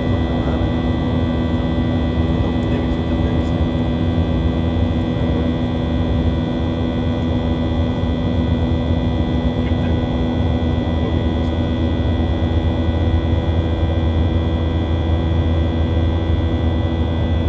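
Cabin noise of a Boeing 737-800 in flight, heard at a window seat beside its CFM56-7B turbofan engine: a steady, even drone with a low rumble and several steady whining tones over it.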